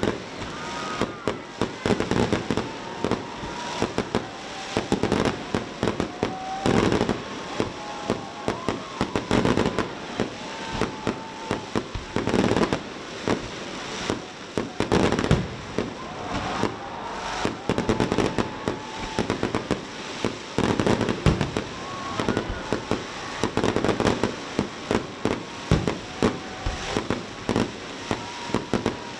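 Fireworks display: a continuous run of bangs and crackling reports, several a second.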